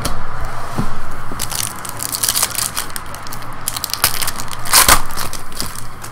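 Chrome trading cards being handled and flipped through in the hand: irregular crackly rustling and clicks of card stock sliding against card stock, with a louder rustle about five seconds in.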